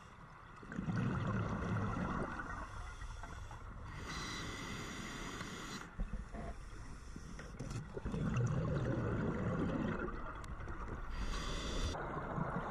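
Scuba diver breathing through a regulator underwater: two exhalations come out as a bubbling rumble, about a second in and again near eight seconds in, each followed by a hiss of inhalation.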